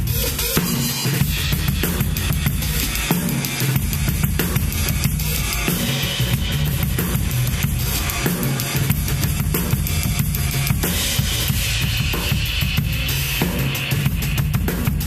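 Full drum kit played continuously for a sound check, bass drum, snare and cymbals together, so the whole kit can be heard at once.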